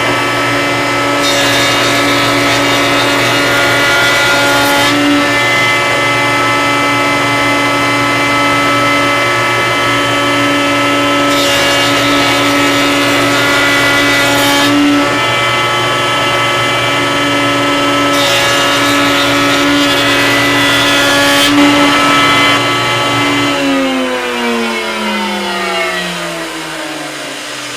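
Router in a table saw router table running steadily, with three stretches of harsher cutting noise as oak panels are fed past the bit to raise their profile. About 23 seconds in it is switched off and winds down with a falling whine.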